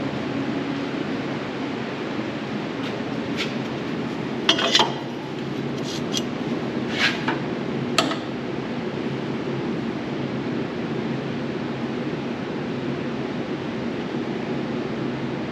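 Steady mechanical hum with a handful of sharp metallic clinks between about three and eight seconds in, as loose sheet-metal pieces are handled.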